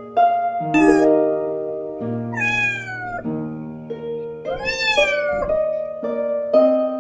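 Gentle plucked-string background music with a cat meowing over it three times: a short meow about a second in, then two longer, plaintive meows, one falling in pitch and one rising then falling.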